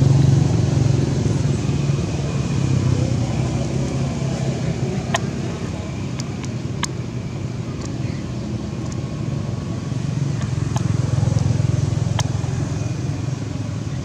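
A motor engine running steadily with a low hum, with a few faint clicks.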